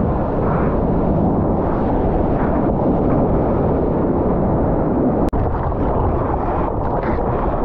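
Steady, muffled rush of wind and churning water buffeting an action camera mounted on a surfboard riding through whitewater. The sound cuts out for an instant a little past five seconds.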